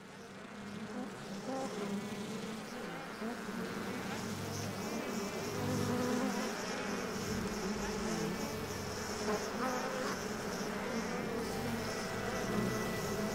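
Bees buzzing around almond blossom, several at once, their hum rising and falling in pitch as they fly past. The sound fades in over the first second, then holds steady.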